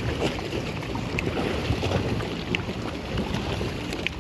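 Wind buffeting the microphone, a steady uneven rumble, with faint small clicks of water lapping over it.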